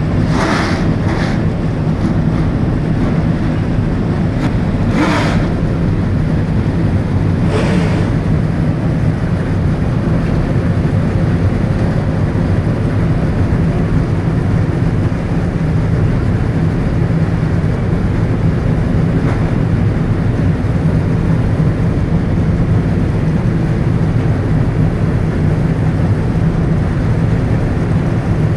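NASCAR stock car V8 engines idling in a steady, loud rumble, with a few short, sharper bursts in the first eight seconds.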